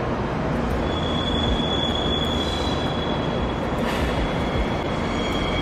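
JR Kyushu 885 series electric train rolling slowly through station points, its wheels giving a steady high-pitched squeal over the heavy rumble of the running gear. The squeal dips near the start and returns about a second in.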